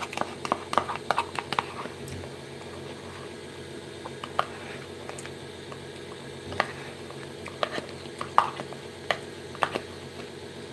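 Phone handling noise: quick fingertip taps and rubs on the phone, densest in the first two seconds, then single taps every second or so, over a steady room hum.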